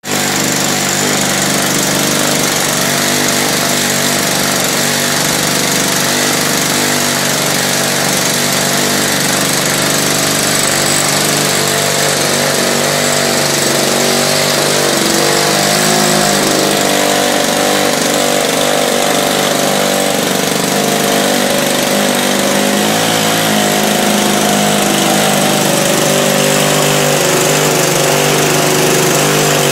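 ZDZ 80 two-stroke gasoline engine of a large-scale RC P-40 model running up at a steady speed through scale exhaust stacks.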